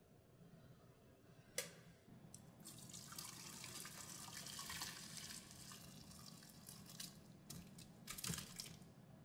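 A sharp click, then water running and dripping in a wire-mesh strainer basket for a few seconds, with scattered drips and small knocks near the end.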